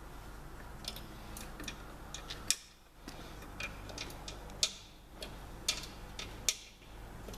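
Irregular small clicks and taps of tools and fittings being worked by hand on a tyre changer during assembly, with three louder sharp snaps about two seconds apart.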